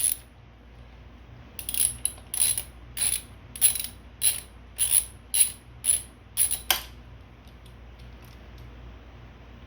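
Ratchet wrench clicking as it backs out the crank-arm bolt on an ebike bottom bracket: about a dozen sharp clicks, roughly two a second, that stop about seven seconds in.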